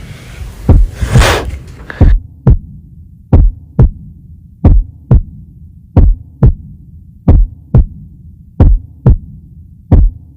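Slow heartbeat sound: paired lub-dub thumps about every 1.4 seconds over a low steady hum. A long shushing hiss sounds in the first two seconds.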